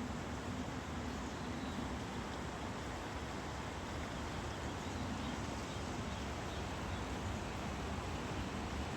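Quiet outdoor nature ambience: a steady, even hiss with a few faint high chirps now and then.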